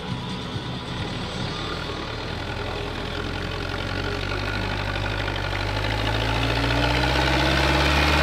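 Zetor 7711 tractor's four-cylinder diesel engine labouring through deep mud under load, growing steadily louder as it approaches.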